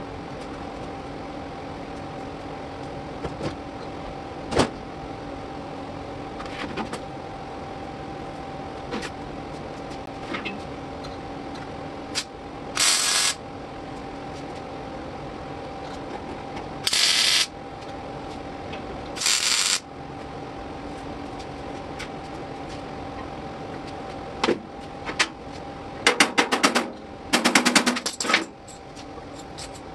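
Welder laying tack welds on sheet-steel body panels: five short bursts of about a second each, three spread through the middle and two louder, rapidly pulsing ones near the end. A steady shop hum and light taps run underneath.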